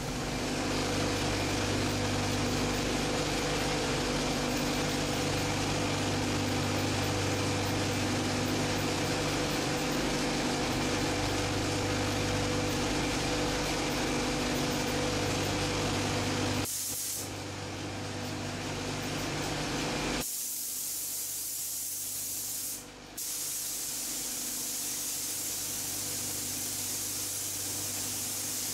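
Gravity-feed air spray gun hissing steadily as it sprays paint onto a car body, over a steady low hum. The hiss breaks off briefly a little past three-quarters of the way through.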